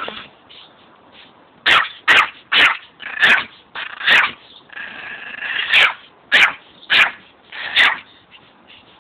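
Yorkshire terrier barking: a quick run of about ten sharp yaps starting a couple of seconds in, with one longer, drawn-out whining bark near the middle.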